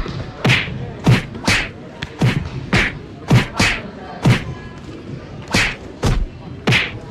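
Children's kicks and punches landing on padded taekwondo chest protectors during sparring: a quick, irregular string of thuds and whacks, a dozen or so, echoing in a large gym.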